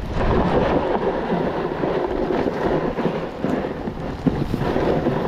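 Steady wind buffeting the microphone, with the hiss and scrape of skis sliding over snow as the camera's wearer skis downhill.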